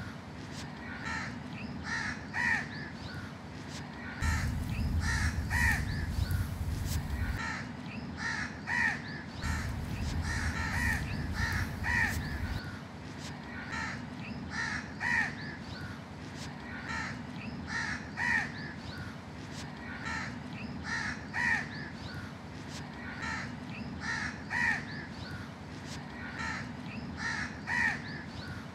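A flock of house crows cawing, short calls coming again and again, often close together or overlapping. Two spells of low rumbling noise, about four and ten seconds in, each lasting roughly three seconds.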